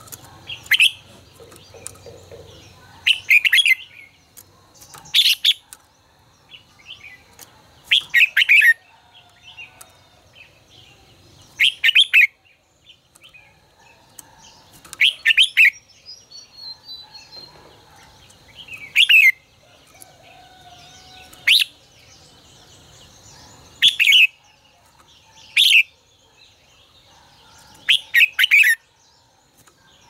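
Red-whiskered bulbul singing: short, loud, sweeping song phrases repeated about every two to four seconds, around eleven in all.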